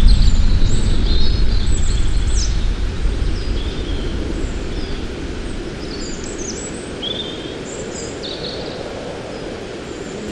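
Several birds chirping now and then over a low, steady rushing noise that fades over the first few seconds.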